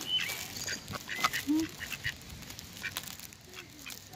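Ducks quacking: several short calls, scattered among brief chirps and clicks.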